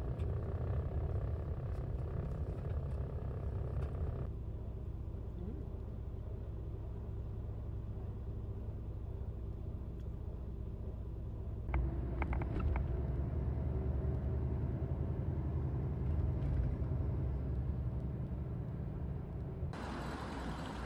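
Low, steady rumble of a moving road vehicle, with cuts between shots about four, twelve and twenty seconds in.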